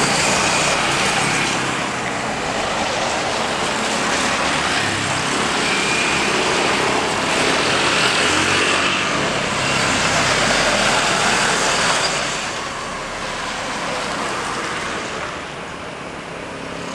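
Jet engines of a Boeing 737-type airliner on its landing roll, a loud steady rush that drops away noticeably about twelve seconds in.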